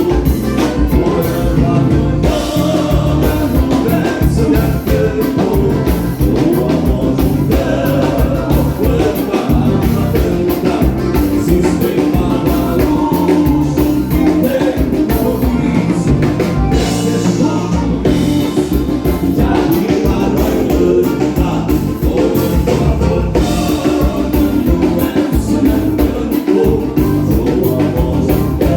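Live gaúcho dance band playing a vanera, with a singer over a steady bass and drum beat.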